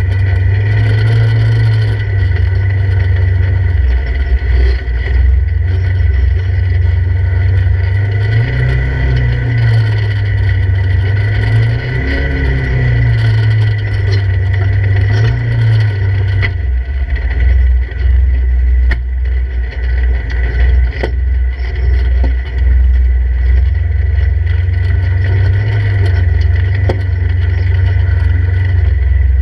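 Polaris RZR 1000 side-by-side's parallel-twin engine heard from inside the open cab while crawling over rocky ground, its pitch rising and falling as the throttle is worked. A few sharp knocks come from the second half on.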